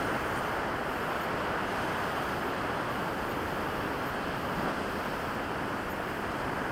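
Steady rushing of ocean surf breaking on a beach, mixed with wind noise on the microphone.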